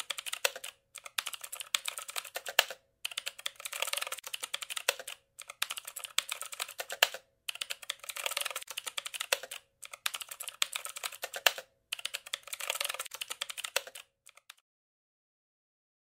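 Typing on a computer keyboard: fast runs of key clicks in about seven bursts with short pauses between them, stopping about two seconds before the end.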